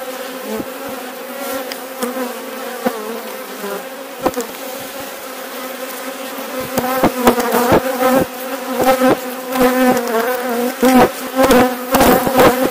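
Honeybee colony in an opened hive buzzing, a steady hum. In the second half a run of short bumps and knocks comes through over the buzzing.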